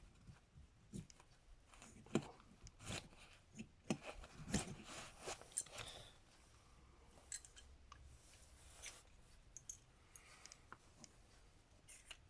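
Small objects being handled: scattered light clicks and knocks, most of them between about two and six seconds in, with quieter gaps.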